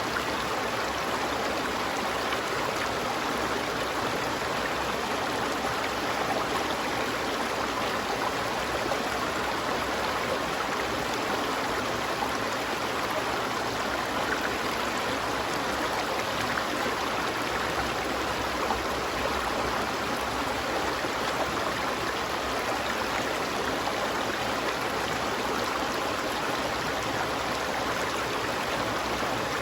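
Water of a stream flowing, an even, unbroken rush.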